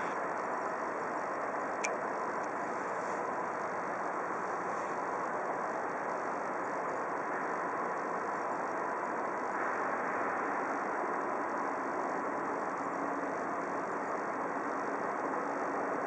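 Steady rushing noise of a railway station yard at a distance, with one sharp click about two seconds in.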